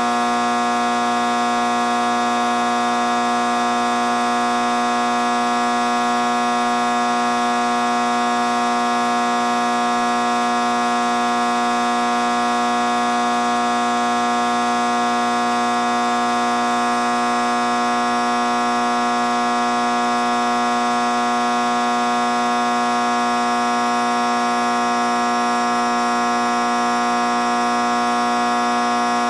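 A loud steady drone made of several held tones at once, unchanging in pitch and level throughout.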